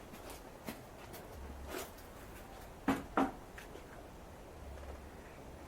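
A few scattered knocks and clinks, the loudest two close together about three seconds in, over a faint low hum: equipment being handled while molten metal is poured into a sand casting mould.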